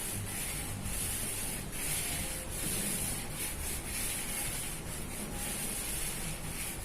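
Paintbrush stroking wall paint onto a wall, a repeated swishing rub at about one stroke a second.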